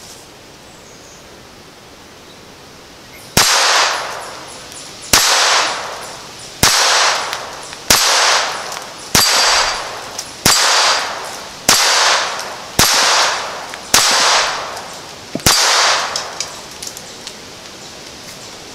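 Ten shots from a Browning 1911-22 .22 LR pistol firing CCI Quiet-22 Semi-Auto ammunition, each with a ring from the steel gong it hits, spaced a little over a second apart. The pistol cycles all ten rounds without a hiccup. A few faint small rattles follow the last shot.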